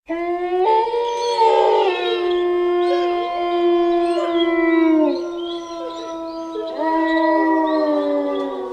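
Wolves howling in chorus: long, held howls overlapping at different pitches, with another voice joining near the end as the lower howls slide down.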